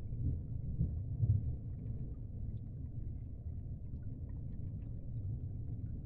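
Steady, muffled low rumble of underwater water ambience, with a few faint ticks and a slight swell about a second in.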